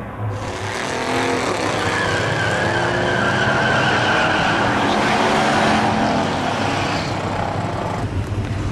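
Drag-racing muscle car engines revving hard with tire squeal; the engine note climbs, then falls away near the end.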